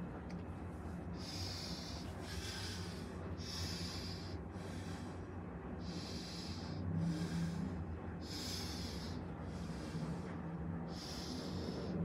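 A person breathing close to the microphone, about one breath a second, over a steady low hum of laundromat machines.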